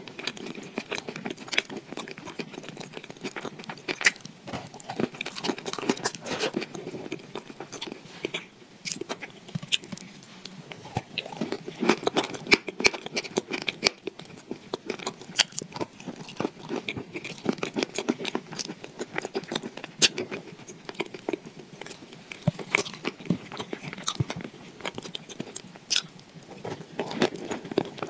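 Close-miked crunching and chewing of a crumbly chalk block coated in creamy wet paste. Many sharp crisp crunches and crackles come one after another, with wet, sticky mouth sounds between them.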